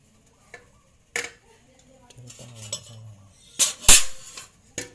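Sharp metallic clinks and clatter of a metal hand tool and loose components being handled on a workbench, a few separate knocks with the loudest about four seconds in. A faint murmur of a voice comes in the middle.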